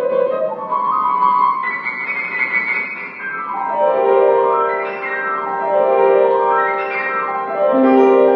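Yamaha grand piano played solo: a fast shimmering trill figure, then from about halfway in, sweeping runs up and down the keyboard that repeat about every second and a half over held low notes.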